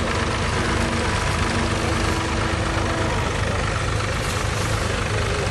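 Ford 4000 tractor engine running steadily while pulling a plough.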